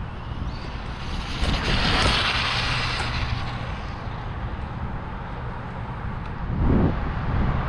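Traxxas Bandit RC car running on a 4S LiPo, its electric motor and tyres swelling to a peak about two seconds in as it speeds past, then fading. Steady wind noise on the microphone runs underneath, with a dull bump near the end.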